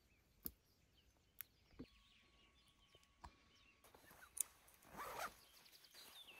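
Faint handling sounds while camping gear is packed: a few light clicks and taps, and a short zipper rasp about five seconds in.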